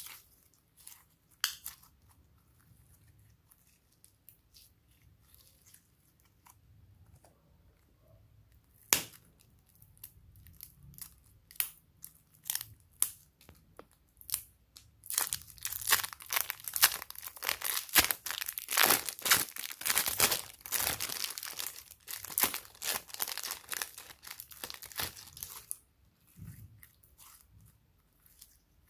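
Plastic piping bag of pink slime crinkling and crackling as hands squeeze and handle it. There are scattered sharp crinkles at first, then about halfway through a dense, continuous crackling as the slime is worked out of the bag, which stops a few seconds before the end.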